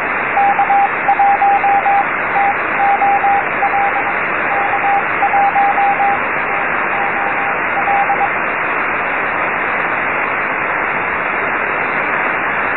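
Morse code from amateur radio station K1TOL received on the 6-metre (50 MHz) band: a keyed beeping tone of dots and dashes over steady receiver hiss. The signal stops about eight seconds in, leaving only the hiss.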